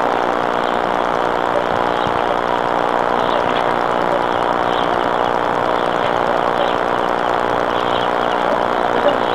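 Engine idling steadily with an even, unchanging hum.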